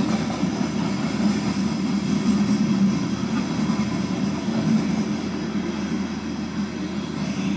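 Coal train's cars rolling steadily past on the rails, a continuous rumble of wheels and cars without a horn, played back through a computer's speaker.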